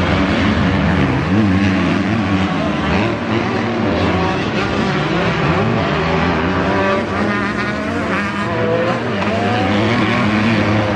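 Several motocross bikes racing round a dirt track, their engines revving up and down and overlapping, loud throughout.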